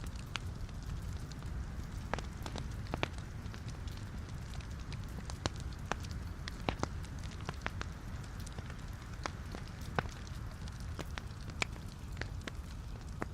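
Wood fire burning in a fireplace: a steady low rumble with frequent irregular sharp crackles and pops from the burning logs.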